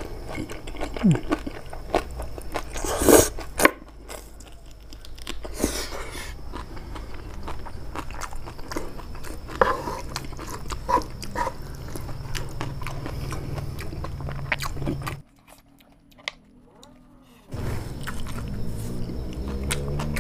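Close-up eating sounds of boiled papaya stems and leaves in spicy peanut pecel sauce: sucking the stems in, then wet chewing and biting with a few crunches. The sound cuts out for about two seconds near the end.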